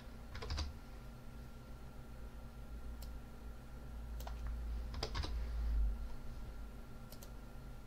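Computer keyboard typing in two short bursts, about half a second in and about five seconds in, with a few single key clicks in between, as dates are typed into a script. A low steady hum runs underneath.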